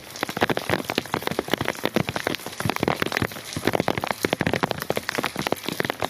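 Rain falling: a dense, irregular stream of drops striking a surface.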